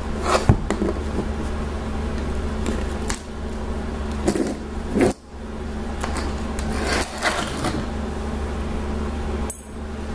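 Scattered light knocks and scrapes of hands handling things, over a steady low hum.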